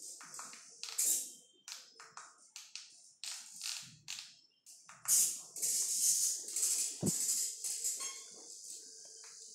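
Small hobby pan-and-tilt servos of an FPV camera gimbal whirring in many short, stop-start bursts as they follow the head tracker's movements. A single knock about seven seconds in.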